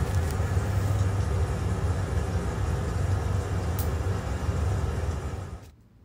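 A steady low rumble with a hiss over it, with a few faint clicks, cutting off suddenly near the end.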